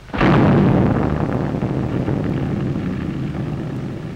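An explosion: a sudden loud blast, then a long rushing noise that slowly fades over the next few seconds.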